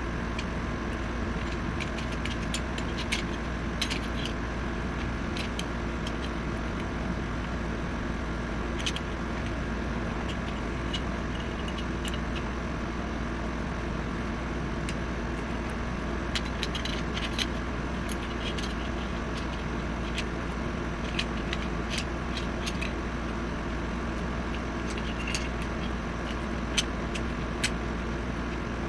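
Scattered small metallic clicks and clinks from hand work on a BB-pistol slide while a replacement sight is being fitted, over a steady background hum.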